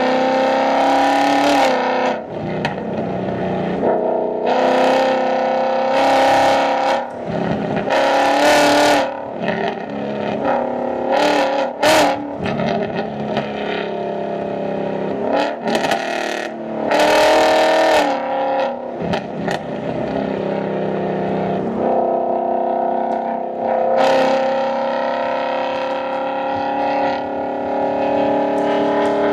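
Ford Mustang S550 V8 exhaust, revved and accelerated repeatedly, with short loud surges between stretches of steadier running.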